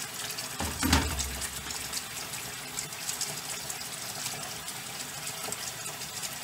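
Water running steadily from a tap into a utility sink, filling it, with a low knock about a second in.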